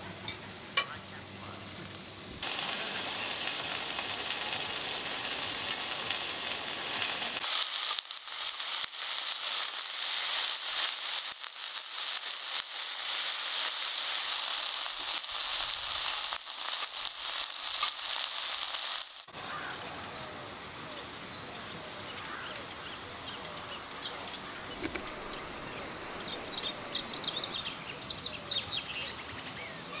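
Food sizzling in a hot frying pan, a steady hiss with crackling pops, loudest through the middle. Later the sizzle drops to a quieter background and birds chirp near the end.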